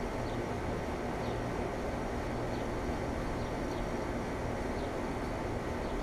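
Neighbouring outdoor heat pump units running: a steady hum with fan noise, and a faint high chirp about once a second.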